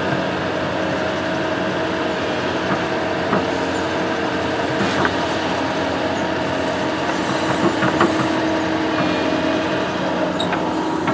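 Construction machine engine running steadily under a constant drone, with a few short clanks and knocks from the machine.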